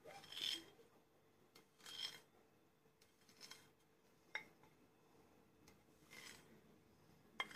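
Faint scraping of a kitchen knife against the inside of a bowl as set jelly is cut: a few separate short scrapes, with one small click about four and a half seconds in.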